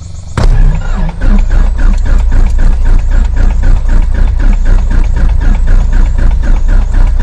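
Piper Warrior II's four-cylinder Lycoming engine and propeller running at low power, heard loud inside the cabin, with a regular pulsing about four to five times a second. It starts abruptly about half a second in.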